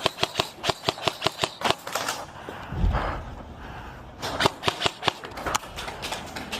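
Airsoft submachine gun firing in two rapid bursts of sharp snapping shots, about six or seven a second, with a dull thump in the pause between them.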